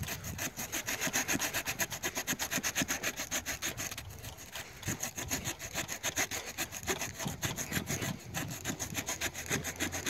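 The small folding saw blade of a Leatherman Wave multitool sawing through a 2-inch tree limb in quick back-and-forth strokes, about four or five a second, easing off briefly about four seconds in and then going on less evenly.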